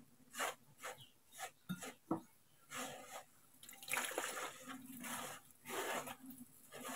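Hands working crumbly flour dough in a wooden bowl, in short soft strokes about twice a second. About four seconds in, water poured from a glass jug trickles onto the dough, and the mixing turns wetter and more continuous.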